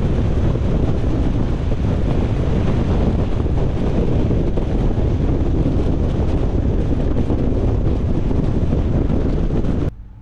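Steady, loud rush of wind and road noise from a car driving at highway speed. It cuts off abruptly near the end.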